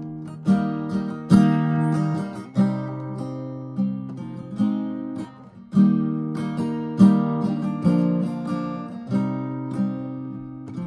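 Resonator guitar played solo: picked chords and notes struck about once a second, each ringing out and decaying, with a short gap about five and a half seconds in.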